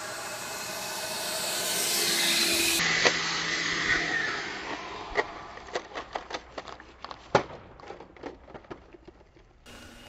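Electric fan whine of a modified EGO 56 V cordless leaf blower driving a small RC car, growing louder over the first few seconds. After a cut the whine fades while a string of irregular sharp knocks and clatters dies away.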